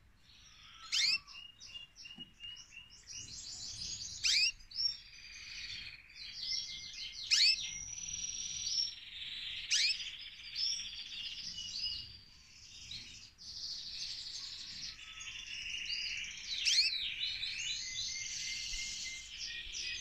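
Domestic canary singing a long, unbroken song of rapid trills and rolling warbles, broken every few seconds by a loud, sharp, sweeping whistle.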